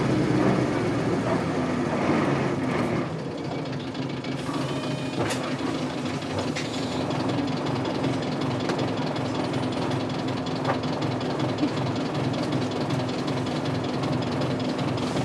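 Isuzu Cubic bus's 8PE1 V8 diesel engine running. It drops in level about three seconds in and settles to an idle that is rough and uneven, typical of this bus's unstable idling.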